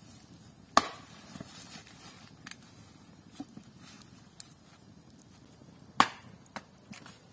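Wood being chopped with a blade: two sharp chops about five seconds apart, with lighter knocks between them.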